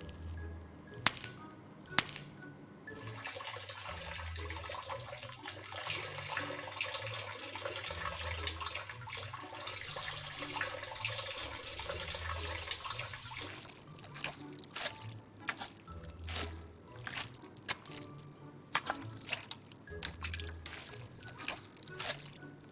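Background music with a slow, deep pulse. Over it comes a steady water-like hiss for about ten seconds, then scattered clicks and taps.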